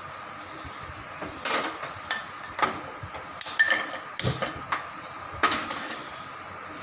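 A steel kadhai clanking against the gas stove's burner grate as it is gripped with tongs and shifted into place: a string of about ten sharp metal knocks, some ringing briefly.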